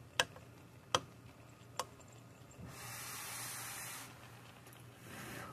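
A utensil taps against the pan of fried rice three times. Then comes a breathy hiss lasting over a second, and a shorter one near the end.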